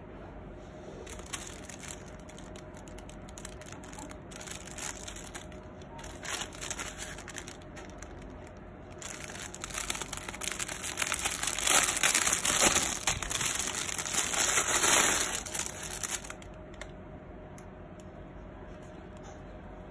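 Clear plastic packaging bag crinkling as hands work it open to free a felt keyboard sleeve. Scattered crinkles at first, then louder, continuous crinkling in the middle that stops about three-quarters of the way through.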